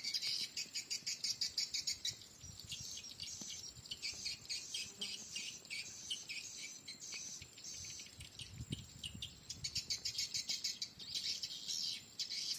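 Swiftlet calls: a dense, rapid, insect-like twittering of many short high chirps that thins a little in the middle and picks up again near the end.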